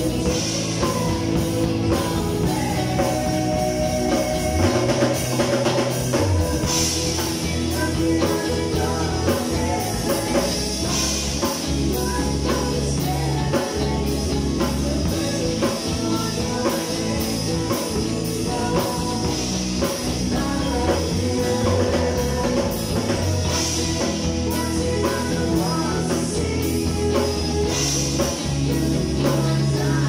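Live band playing a rock-style worship song: an acoustic drum kit keeping the beat with cymbal crashes every few seconds, under electric guitar.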